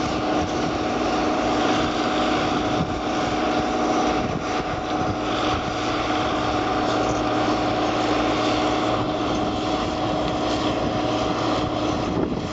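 Engine of a large trailer-mounted wood chipper running steadily at working speed, a constant drone with a steady hum, while pine slash is chipped.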